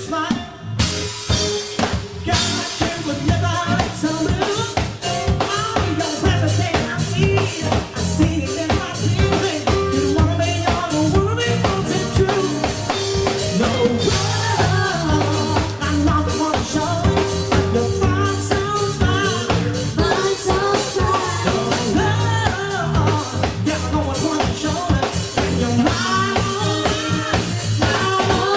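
Live band playing an upbeat dance number: a drum kit keeps a steady beat under bass and keyboards, with a short break in the beat just after the start.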